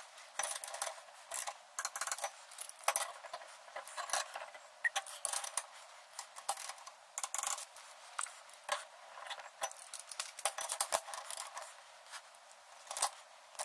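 Torque wrench with a long extension and socket working the backing-plate T-bolt nuts through the axle flange access hole: irregular metallic clicks and clinks, some in quick runs, as the nuts are torqued to 30 foot-pounds.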